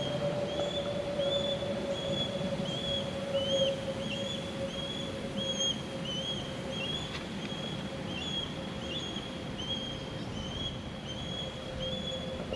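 A high, short chirp repeated evenly about twice a second, from an animal calling outdoors, over a steady low hum that slowly falls in pitch.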